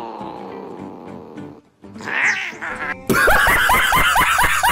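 A domestic cat gives a long, falling, drawn-out meow. About three seconds in, a much louder run of quick repeated cries, about five a second, starts suddenly.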